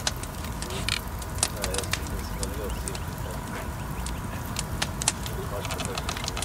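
Wood fire crackling and popping under a widened dugout canoe hull, heating it to set its shape: many sharp irregular pops over a low steady rumble. A few faint wavering calls come through about a second and a half to two and a half seconds in.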